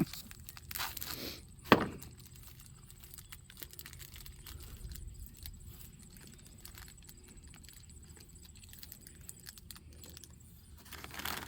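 Hand tools clinking as they are handled, with one sharp metallic click a little under two seconds in, then faint handling noise.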